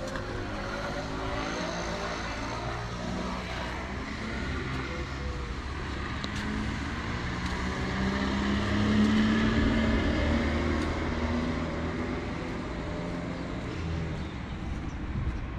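Street traffic: the engine of a motor vehicle running close by, growing louder to a peak about nine seconds in and then easing off, over general street noise.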